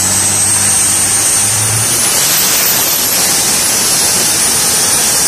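Turbocharged engine of a rat rod running hard under load on a chassis dyno, with a high turbo whistle that climbs in pitch, peaks about two and a half seconds in, then holds high.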